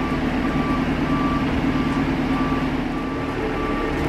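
Marine travel lift's engine running steadily while its warning beeper sounds in short, regular beeps as the hoist takes the boat's weight in its slings.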